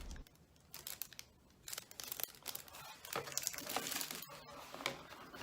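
Packaging crinkling and rustling in irregular handling bursts as items are taken out of a box, starting about a second in.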